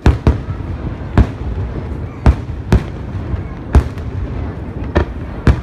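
Fireworks bursting: about eight sharp bangs at uneven intervals, two pairs coming close together, with a low rumble carrying on between them.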